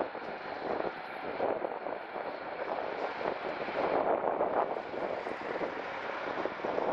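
Coupled pair of articulated trams rolling away along the street track: a steady rushing rumble of wheels on rail that swells and dips slightly.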